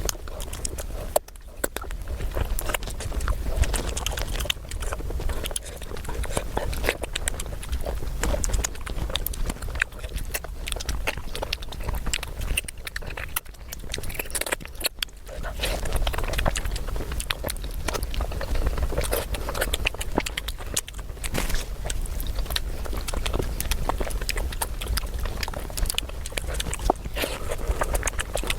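Close-miked eating: continuous chewing and biting of food, made of many quick clicks and crackles.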